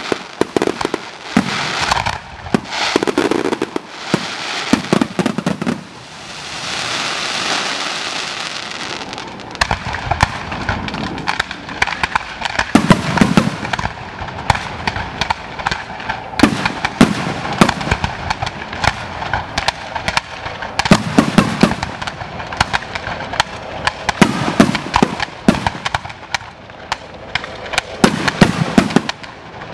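Fireworks display: aerial shells bursting with deep booms every few seconds over dense, continuous crackling and popping. About six seconds in, a hiss swells for a few seconds.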